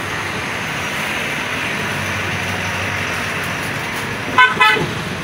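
Steady background noise, with a vehicle horn tooting twice in quick succession a little over four seconds in.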